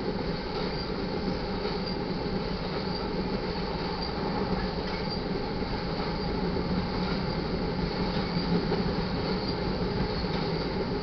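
Tank cars of a BNSF crude oil train rolling past, a steady rumble of steel wheels on rail.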